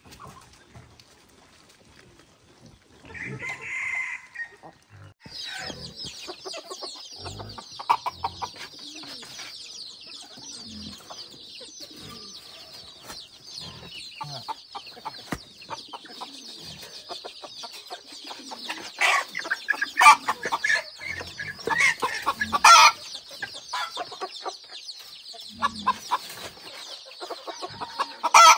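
Chickens clucking, with a rooster crowing once about three seconds in. From about five seconds a steady high-pitched drone runs underneath, and there are several loud squawks from a hen being handled in the second half.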